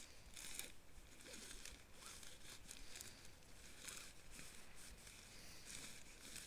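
Faint rustling and crinkling of synthetic tent fabric being handled and spread out, in short irregular bursts.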